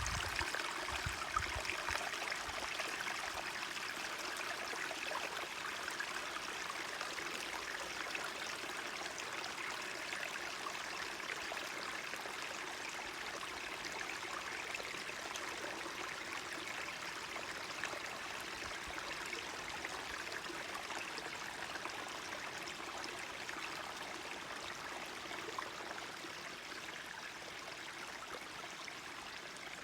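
Forest stream running steadily over stones, an even babbling rush of water, with a few soft low bumps in the first couple of seconds.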